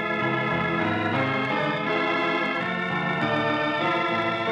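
Organ music: sustained chords that change every second or so, a musical bridge between the recruiting message and Act Two of a radio drama.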